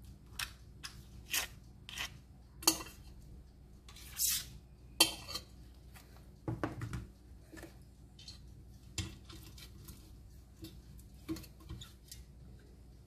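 Clinks and knocks of a metal fluted tube cake pan and utensils being handled while the pan is greased with butter: a string of separate sharp taps, with a brief rustle about four seconds in.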